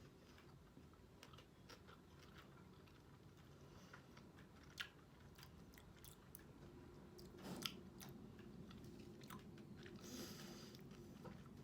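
Faint crunching and chewing of sugar-coated almonds in white chocolate, with scattered small sharp clicks, two of them louder, about five and seven and a half seconds in.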